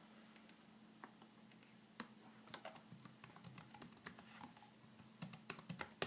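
Faint typing on a computer keyboard: a few scattered keystrokes at first, then quicker runs of keys from about halfway through, loudest near the end.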